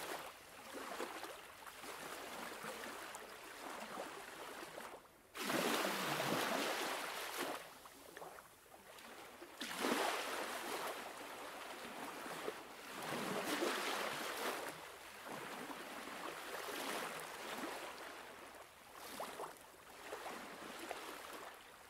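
Sea waves washing against the rocks of a breakwater, a hissing wash that swells and ebbs every few seconds.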